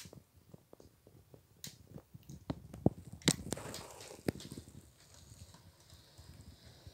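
HO scale model intermodal train rolling past, its wheels clicking and clacking over the track joints in an uneven patter that grows busier and louder from about two seconds in.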